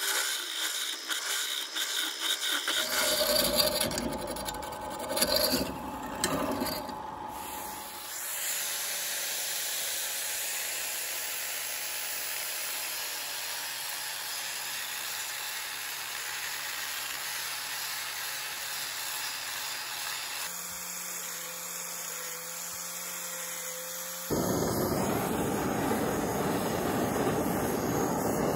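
A hand gouge scrapes the inside of a spinning wooden vase on a wood lathe in irregular strokes. An angle grinder with a sanding disc then runs steadily against the turning wood. About four seconds from the end, a gas blowtorch starts with a loud, steady roar.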